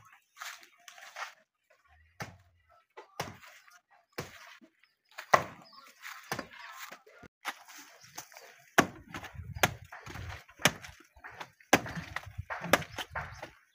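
A machete chopping a banana stem against a wooden trough edge: a series of sharp, irregular chops that come thicker in the second half.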